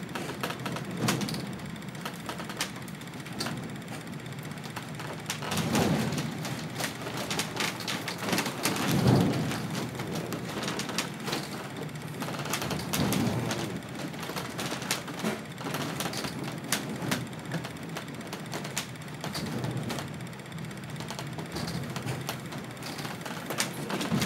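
Crew boat cabin noise in heavy seas: a constant rumble with dense crackling and clatter, and a few louder low surges as the hull pounds through the waves.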